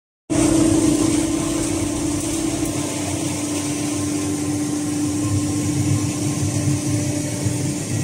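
Industrial machinery running steadily: a constant mechanical hum with one strong steady mid-pitched tone, typical of the fibre-handling machines in a waste-textile recycling workshop.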